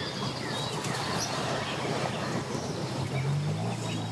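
Sea-Doo personal watercraft's engine and jet pump running as it is driven up onto its trailer, the engine note getting louder about three seconds in. Birds chirp a few times.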